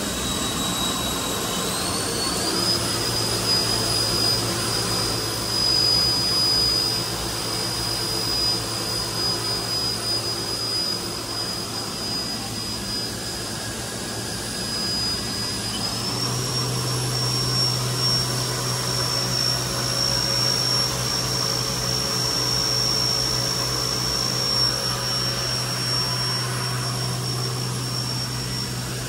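Haas VF-4 vertical machining center's spindle running free with no cut, a steady high whine over a low hum. The pitch steps up twice, about two seconds in and again about halfway through, as spindle speed is raised from about 5,250 to 6,750 and then 7,500 rpm.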